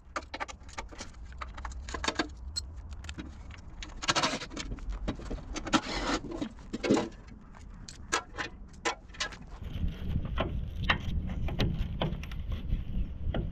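Irregular clinks and knocks, some with a metallic jingle, over a steady low rumble that grows louder about ten seconds in.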